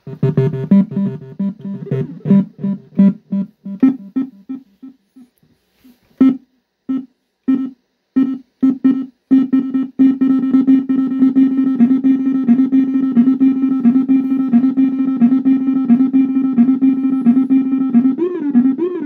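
Synthesizer notes from a Roland JP-08 played through a digital delay effect: short notes, each trailed by echoes that die away. About ten seconds in, a held note with quickly pulsing repeats builds into a steady drone, and its pitch wavers near the end.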